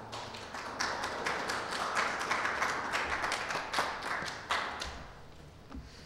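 Audience applauding, a dense patter of clapping that dies away near the end.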